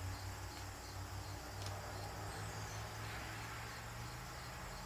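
Crickets chirping faintly as a high, evenly pulsing trill, over a low steady hum, with one small click partway through.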